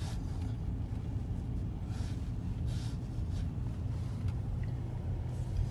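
Car cabin noise while driving slowly: a steady low rumble of engine and tyres, with a faint hiss and a few faint scattered clicks.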